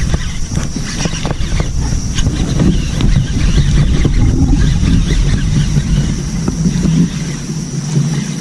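Heavy low rumble of wind and handling noise on the microphone, with scattered clicks in the first few seconds and a faint steady high whine behind it.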